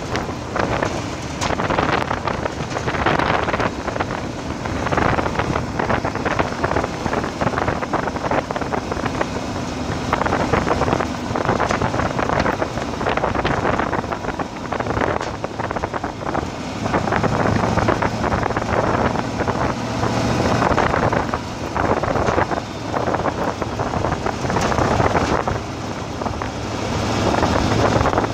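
Wind buffeting the microphone in uneven gusts over the low, steady running of a vehicle driving slowly on a gravel dirt road.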